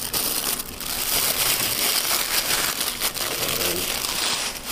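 Clear plastic packaging on a fishing rod bag crinkling and rustling steadily as hands peel and handle it, with a few sharper crackles.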